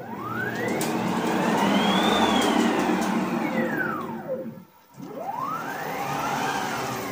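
Nema 23 stepper motors on DM542 drivers at 36 V whining as the homemade CNC router's axis makes two rapid moves. Each time the whine climbs in pitch as the axis speeds up and sinks back as it slows to a stop; the first move takes about four and a half seconds, and the second starts about five seconds in.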